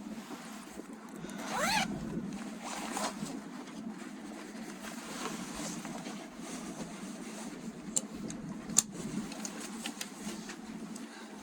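Passenger train running, heard from inside the carriage as a steady rumble, with a short rising squeal about two seconds in and two sharp clicks near the end.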